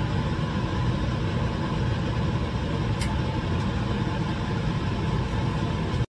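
Biosafety cabinet's blower and downflow air running with a steady, storm-like rushing noise, with a faint click about halfway through. The sound cuts off suddenly near the end.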